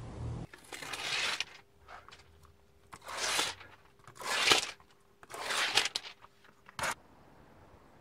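Double-sided tape being pulled off in four separate strokes, each about half a second to a second long, then one short sharp click near the end.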